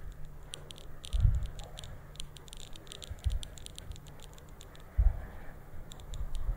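Handling noise from a cellphone braced against a car door as it pans: small clicks and rattles throughout, with three dull thumps, over a faint low rumble.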